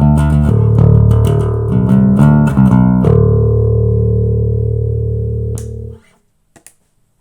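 Harley Benton TB-70VS Thunderbird-style electric bass tuned in D, playing a run of quick picked notes for about three seconds. A final low note is left ringing and then is cut off sharply about six seconds in, followed by a few faint clicks.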